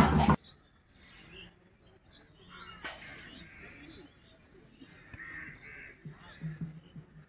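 A loud sound cuts off abruptly about half a second in, leaving faint open-air ambience with distant voices and short calls, and one sharp click about three seconds in.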